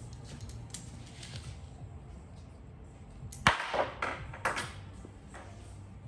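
Metal hand tools clinking and clattering as they are rummaged through: light clinks at first, then a sharp metallic clack with a short rattle about three and a half seconds in, and another clatter a second later.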